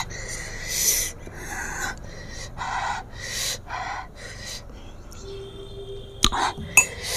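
A person breathing in and out in short, audible breaths and sniffs, one after another. Near the end there are two sharp clicks.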